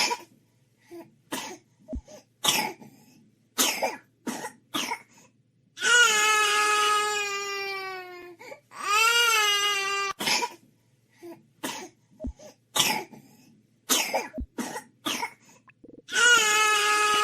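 Baby coughing in runs of short coughs, broken by three long cries.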